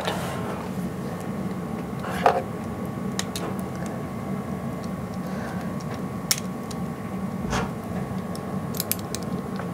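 Scattered light clicks and knocks from an HDMI cable and camera being handled while a plug is tried in the camera, over a steady low hum.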